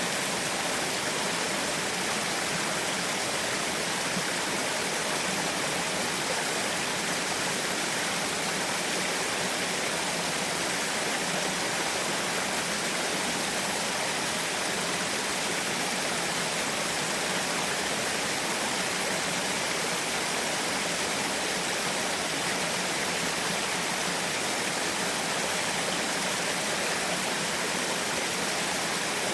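Small waterfall splashing steadily: an even, unbroken rush of falling water.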